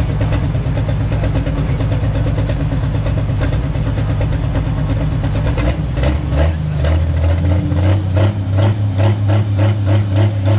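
Modified pulling tractor's engine idling heavily at the starting line. About six seconds in, the sound changes and settles into an even loping pulse of about two to three beats a second.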